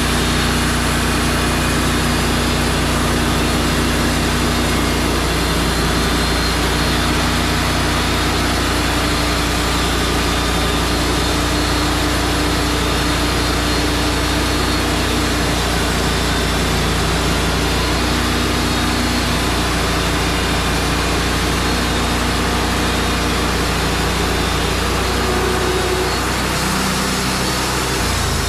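Wood-Mizer LT35 portable sawmill's engine running steadily with a low, even hum, easing slightly near the end.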